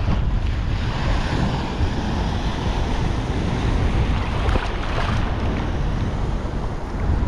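Rough surf washing and breaking around a wading angler, with wind buffeting the microphone in a steady low rumble.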